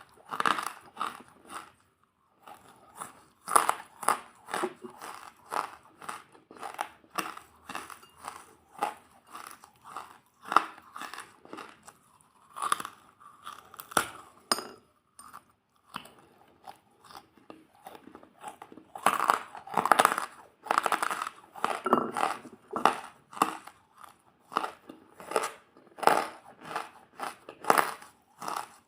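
Crunchy food being bitten and chewed close to the microphone for ASMR: a steady run of sharp crunches, thinning out midway and growing loudest and most crowded about two thirds of the way through.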